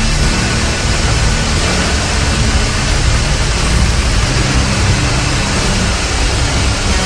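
Loud, dense distorted music soundtrack: a noisy wall of sound over low bass notes that shift every second or so.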